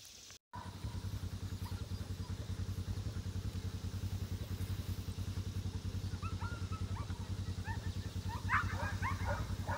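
A small engine idling with a steady low, fast pulse. From about six seconds in, a Drahthaar (German wirehaired pointer) on a check cord whines in short high squeaks, loudest near the end.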